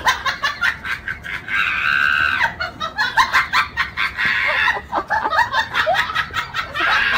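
Hearty human laughter: a fast run of short laughs, with a couple of longer high-pitched stretches.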